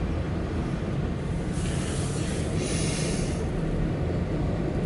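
Empty autorack freight train rolling past with a steady low rumble, heard from inside a parked car. A hiss rises over it for about two seconds, starting about a second and a half in.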